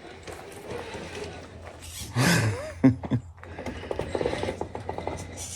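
RC rock crawler's motor and gear drivetrain whirring and ratcheting as it crawls, with a loud rush of noise about two seconds in, a few sharp clicks, then a fast run of ticks.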